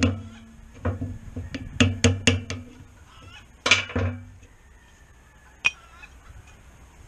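Steel hammer striking a metal bearing housing to drive out the old bearing: a quick run of about eight sharp metallic blows, each ringing briefly, then two more a little under four seconds in and a single one near the end.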